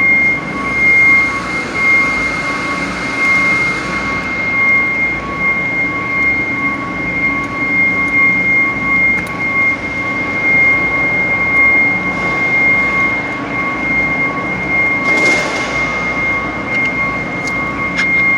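Steady machine drone with a constant high-pitched whine over it, and a short hiss about fifteen seconds in.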